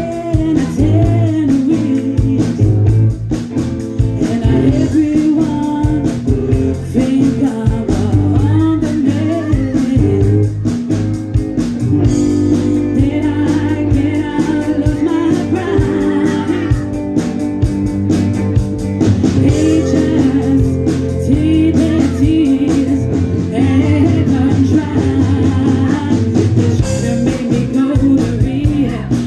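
A live rock band playing a song: electric guitars and drums under a lead vocal, sung through the stage PA.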